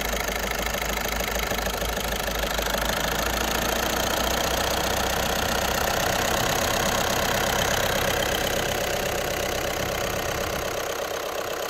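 VW Passat B7's 1.6 TDI (CAYC) four-cylinder common-rail diesel engine idling steadily, heard from above the open engine bay.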